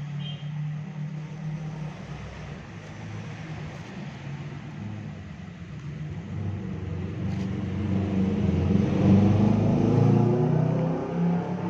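A motor vehicle's engine running, growing louder about eight seconds in and peaking around nine to ten seconds before easing off slightly.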